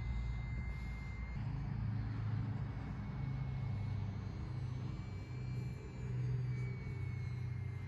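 Remote-controlled model airplane flying overhead: a thin, high-pitched whine that holds a steady pitch and shifts slightly up and down, over a steady low rumble.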